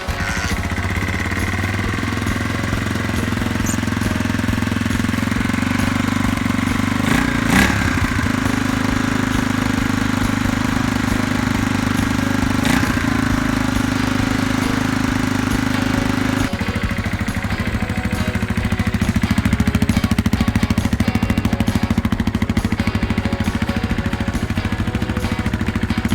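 Honda XR250R's single-cylinder four-stroke engine running with a rapid, even pulsing beat. About 16 seconds in the sound changes abruptly and gets a little louder.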